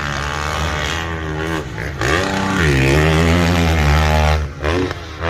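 Motocross bike engine revving up and down over and over as the throttle is worked on the track. It is loudest through the middle and drops off briefly near the end.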